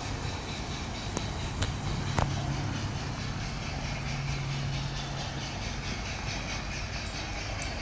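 Bachmann G-scale model steam locomotive and coaches rolling along garden railway track: steady running noise from the motor and wheels on the rails, with a low hum in the middle and a few sharp clicks early on.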